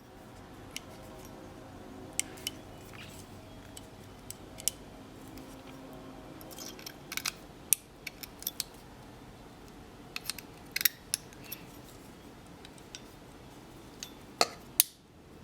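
Small, sharp metallic clicks and taps of a Canik pistol's trigger plunger and its lighter reduced-power spring being worked by hand back into the frame, with a few clustered clicks as it snaps into place.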